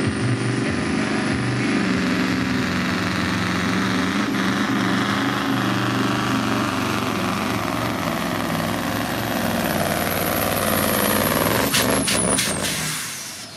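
Supersport pulling truck's turbocharged diesel engine running flat out under load while dragging the weight sled, with a high turbo whistle rising slowly in pitch. Near the end come a few sharp cracks, then the engine sound drops away as the run ends in a full pull.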